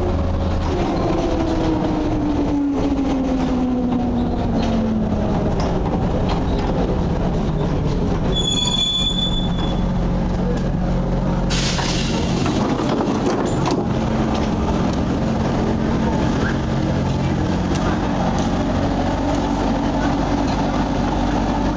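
Interior of a ZIU-9B trolleybus pulling into a stop: the electric traction motor's whine falls in pitch as the bus slows, over a steady electrical hum. About nine seconds in there is a short high beep, and a few seconds later a burst of compressed-air hiss as the pneumatic doors open.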